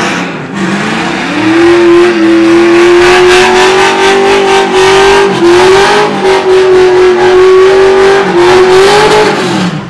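Car engine revved hard and held at high revs for several seconds, very loud. The pitch climbs at the start, dips briefly twice, then drops off near the end, with a rough hiss over the engine note.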